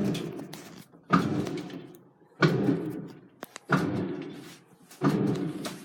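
Samsung Diamond Drum front-loading washing machine turning its drum in short repeated bursts after start, five in all, each a sudden thump of the load and motor that fades over about a second. This is the drum rocking to sense the load before the water starts filling.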